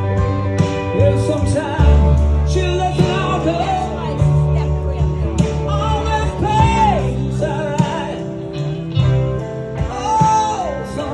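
Live rock-blues song with electric guitar played through a Line 6 POD Express amp modeler over deep bass notes; melodic lines bend up and fall away twice.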